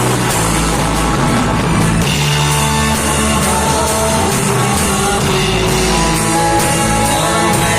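A live church worship band playing a song, with an electric guitar on steady sustained chords over bass.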